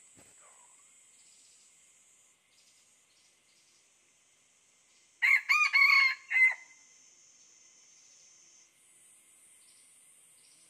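A junglefowl rooster crows once, about halfway through: a short, clipped crow broken into several notes, lasting under a second and a half. A faint steady high-pitched hum runs underneath.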